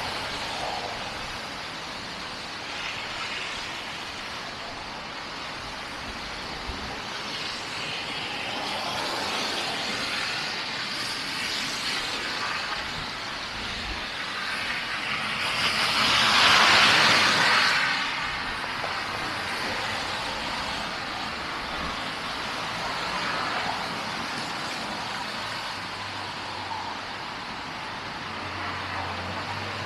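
City street traffic noise, with one vehicle passing close about halfway through, swelling and fading over about two seconds.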